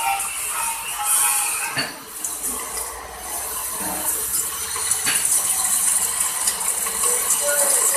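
Iron disk mill grinder running with a steady mechanical rattle as grain is fed into its hopper, with a sharp knock about two seconds in and another about five seconds in.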